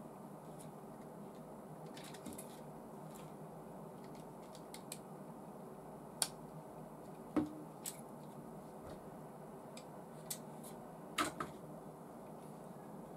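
Scattered light clicks and taps of small clear plastic parts and springs being handled and fitted into a model V8 engine kit's cylinder head, a handful of sharp clicks standing out, over a faint steady background hum.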